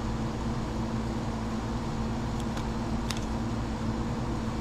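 Steady background hum with a constant low tone, and two faint ticks a little past halfway.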